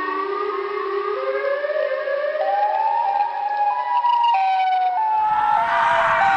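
Siren Head's siren call: a siren-like wail that climbs in small steps for about four seconds, then steps back down a little. A rushing noise joins it about five seconds in.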